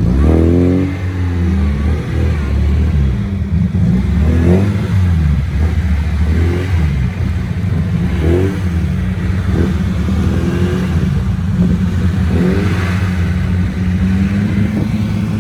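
Off-road vehicle engines running under load, revving up and easing off several times, as a Suzuki Samurai strains forward to tow a vehicle stuck in mud.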